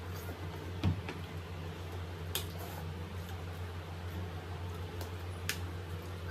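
Tableware at a meal: a soft knock about a second in, then two sharp clicks of metal against ceramic plates, over a steady low hum.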